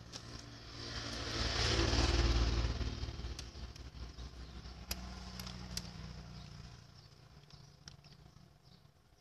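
A motor vehicle passing by, its rumble swelling and fading over the first few seconds. Then a few sharp plastic clicks as the drum unit's plastic cover strip is pressed back into place.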